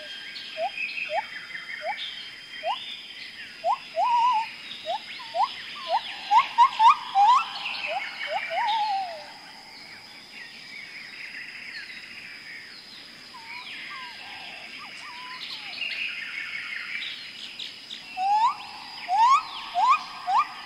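A chorus of birds calling: many short, quick upslurred whistled notes, busy for the first nine seconds or so, thinner in the middle, then busy again near the end, with fainter higher chirps among them, over a steady high-pitched drone.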